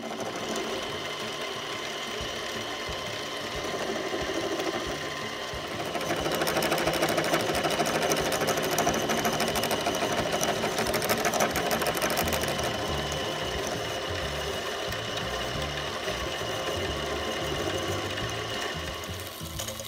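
Harbor Freight Central Machinery mini lathe running, its spindle spinning a bolt while a carbide-insert tool faces the bolt head: a steady mechanical whir. It gets louder about six seconds in and eases off again after about twelve seconds.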